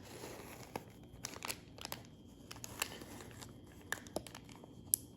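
Faint crinkling and scattered light clicks of small plastic and paper parts being handled on a work surface.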